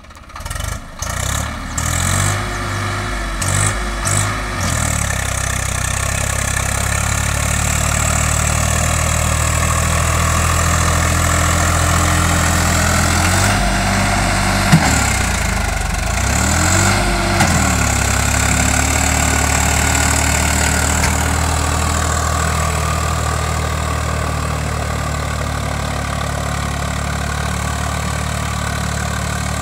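Swaraj 844 FE tractor's diesel engine running under load while pulling a heavily loaded trailer. It runs mostly steady, and its pitch rises and falls twice as the throttle is opened and eased, with one sharp knock about halfway through.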